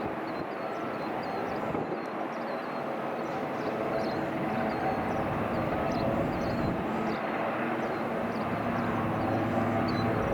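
Airbus AS332L Super Puma helicopter's twin turbine engines and rotor running, growing gradually louder.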